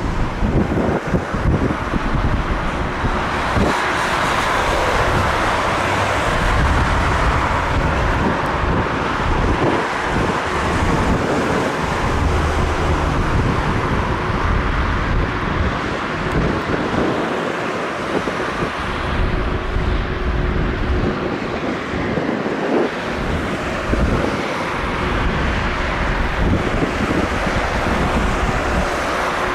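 An Airbus A320's jet engines running, a steady rush with a deep rumble and a faint steady whine, as the airliner rolls along the runway. Gusts buffet the microphone.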